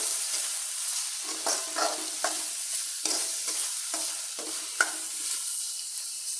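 A steel spoon scrapes and stirs minced mutton and chopped beetroot around an iron kadai over a steady oil sizzle. The scraping strokes come about twice a second and stop about five seconds in, leaving the sizzle on its own.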